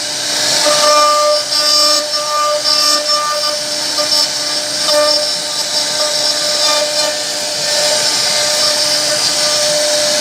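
CNC router spindle cutting a carving into a wooden board: a steady high whine that comes and goes as the bit moves through the wood, over a constant hiss of cutting.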